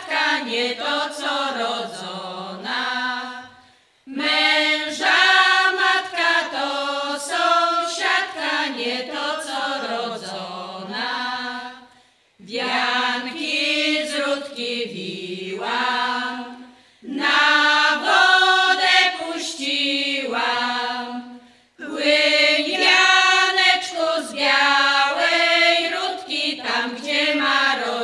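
Women's folk ensemble singing a song together without accompaniment, in phrases of several seconds with short breaks for breath between them.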